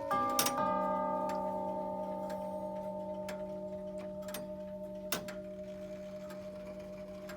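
Herschede grandfather clock's tubular chime bells striking the last notes of a chime phrase and ringing on, slowly fading, in the pause before the next phrase. The clock's pendulum tick sounds about once a second under the ringing.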